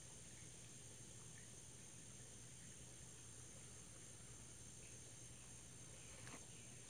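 Near silence: faint outdoor ambience with a steady high-pitched insect drone, and a couple of faint ticks near the end.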